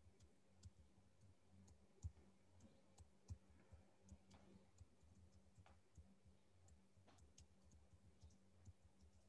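Near silence: faint, irregular clicks of a computer keyboard and mouse over a low steady hum.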